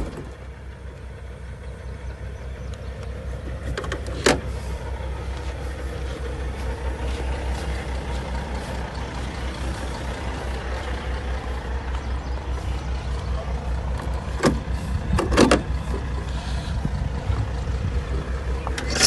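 A heavy truck's engine idling steadily with a low, even pulse, growing slightly louder, while a few sharp knocks and clanks sound as the semi's hood is tilted open.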